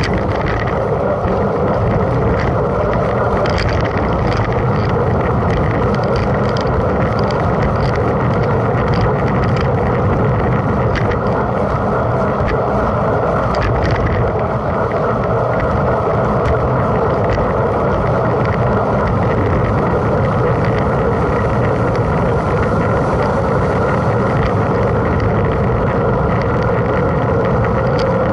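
Steady rush of wind and tyre rolling noise from a mountain bike ridden at speed in a race, with a few faint clicks and rattles in the first half.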